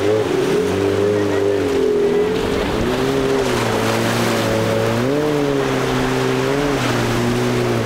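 A bank of outboard motors on a large boat running through rough inlet water, the engine pitch rising and falling together several times as the throttle changes, over the rush of churning water.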